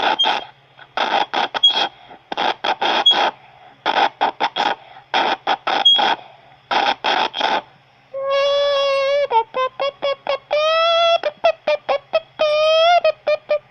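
A child's voice through an electronic voice changer: first a run of short, choppy, hissy bursts in quick clusters, then from about eight seconds in a high, wavering electronic tone broken into syllables.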